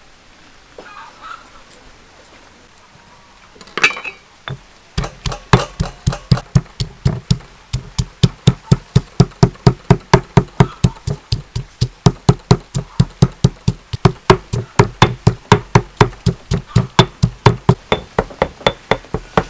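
Stone pestle pounding garlic and dried red chili in a stone mortar: a single knock about four seconds in, then from about five seconds a steady beat of roughly three strikes a second.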